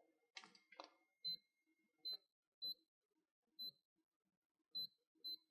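Schlage BE469 keypad deadbolt beeping once for each key press as the programming code is entered: six short, high beeps at an uneven pace, with faint button clicks near the start.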